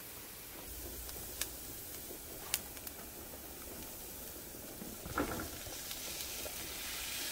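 Chopped onions sizzling in a frying pan, with a few light clicks, then raw ground beef tipped in from a plastic container with a soft thud about five seconds in; the sizzle grows louder afterward.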